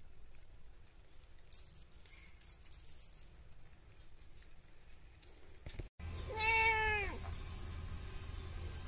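A domestic cat meows once, a drawn-out call of about a second that falls in pitch at the end, a little over six seconds in. Earlier, from about one and a half to three seconds in, there is faint high jingling.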